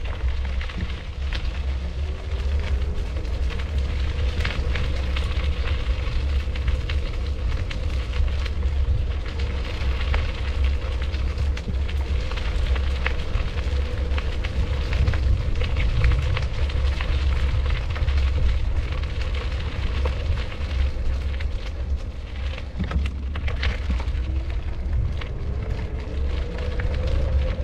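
Heavy low rumble and steady crackling noise, like wind buffeting an action-camera microphone while it moves, over a faint motor hum that rises in pitch near the end.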